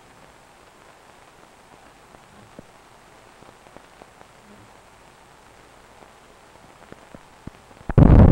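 Faint steady hiss of a 16mm film's optical soundtrack with scattered small clicks and pops, ending in a short, loud, low thump about eight seconds in.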